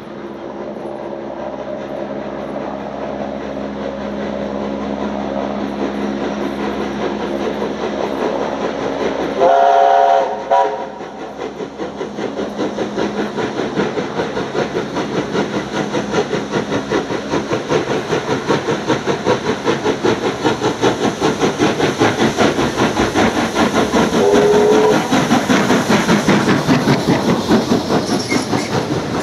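NSWGR C35 class 4-6-0 steam locomotive 3526 working a passenger train towards the listener and passing close: its fast, even exhaust beats grow steadily louder as it nears. A steam whistle blows for over a second about a third of the way in, and briefly again a few seconds before the engine passes.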